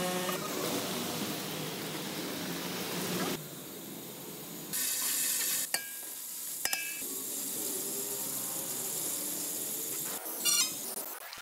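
Hot fat sizzling in a large aluminium cooking pot, with a few sharp metal clinks and a louder burst of sizzling near the end as beef goes into the pot.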